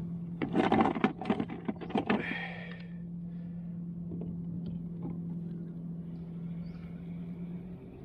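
A burst of clattering and rattling handling noise on the kayak's gear for the first two and a half seconds, over a steady low motor hum that carries on throughout.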